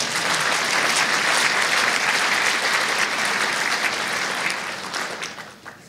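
Audience applauding, a dense clapping that holds and then dies away near the end.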